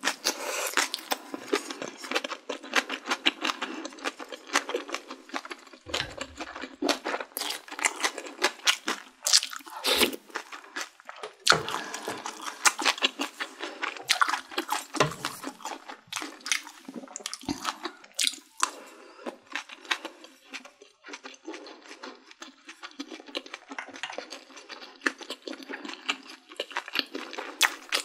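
Close-miked eating sounds: a sip of sundaeguk broth from a wooden spoon at the start, then steady chewing with dense wet clicks and smacks.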